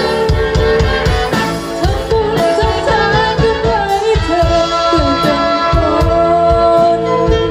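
Live band playing a slow ballad: a melody line over bass and a regular drum beat.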